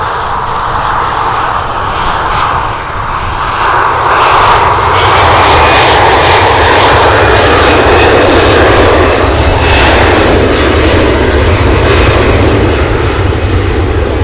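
Boeing 737-300's CFM56 turbofan engines at takeoff power on the takeoff roll. The noise builds over the first few seconds and then holds loud and steady, with a thin whine rising slightly in pitch.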